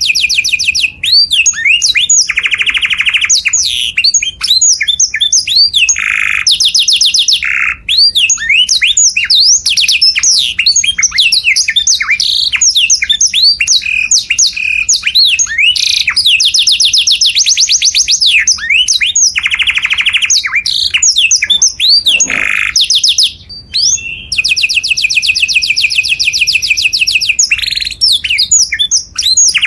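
Canary singing loudly and almost without pause: long, very fast trills and rolls alternate with quick rising and falling chirps, broken by a few brief gaps.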